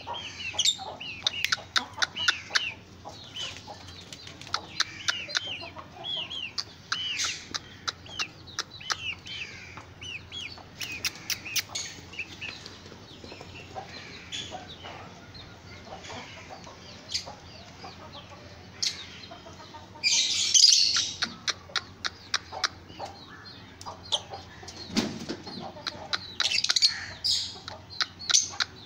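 Aseel chickens: short chirping calls repeat through the first half, over many sharp taps as a rooster pecks at the ground. A burst of wing flapping comes about twenty seconds in, and another near the end.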